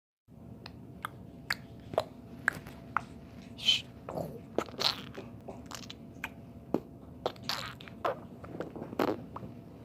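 A run of sharp clicks and crunches, about two a second at first and then more irregular, with a few longer crackling noises among them, over a faint steady hum.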